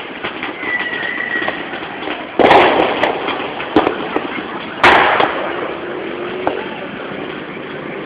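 Fireworks exploding: two loud bangs about two and a half seconds apart, each with a short trailing crackle, and a few smaller pops between and after, over steady background noise.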